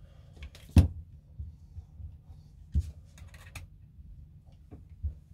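Handling noises from an ASG Scorpion Evo airsoft gun's metal gearbox being unscrewed by hand: a sharp knock a little under a second in, another near three seconds followed by a few light clicks, and a third near the end.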